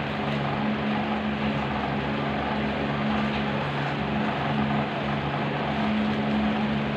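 Steady hum of a small running motor with an even rush of air, holding a constant pitch and level throughout.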